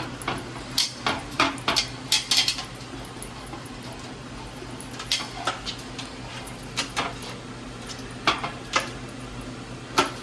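Pots and metal utensils clinking and knocking as they are handled during cooking: about a dozen irregular short strikes, with a steady low hum underneath.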